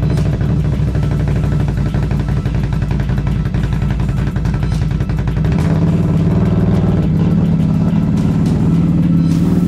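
2021 Can-Am Renegade X-MR 1000R's V-twin engine running just after start-up, picking up revs about halfway through as the ATV is driven off. It is being test-driven to check that the clicking from the rear CV axle is gone now that the axle has been replaced.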